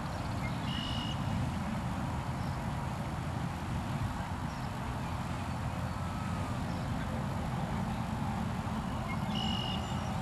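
Steady low outdoor rumble with no sharp bangs, and a short high chirp about a second in and another near the end.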